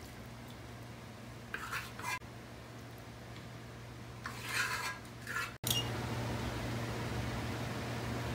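A spatula scraping and pushing chicken masala over rice in a steel pot, in two short bouts, over a steady low hum.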